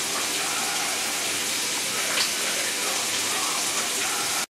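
Ground beef sizzling in a cast iron skillet as it finishes browning: a steady, even hiss.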